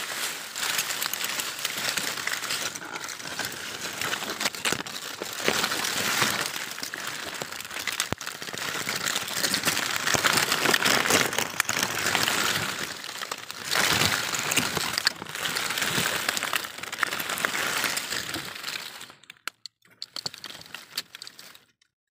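Dry leaves and grass stalks rustling and crackling as hands push through a dense clump of vegetation. The rustling stops a few seconds before the end, leaving a few scattered crackles.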